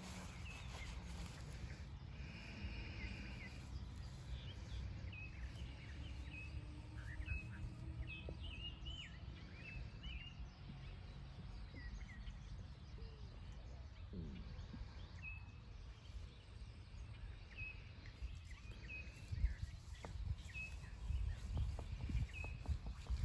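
Outdoor field ambience: a steady low rumble with short bird chirps scattered throughout, and a few low thumps near the end.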